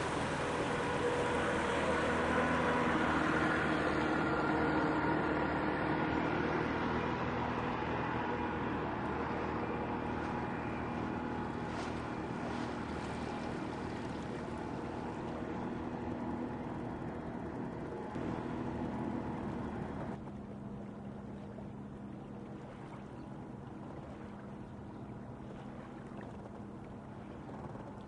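A motor tour boat's engine running with a steady hum as it passes close by, loudest a few seconds in and then slowly fading, with a further drop about twenty seconds in.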